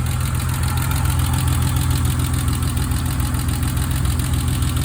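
BMW E30 engine idling steadily, with no belt squeal now that the loose alternator belt has been re-tensioned.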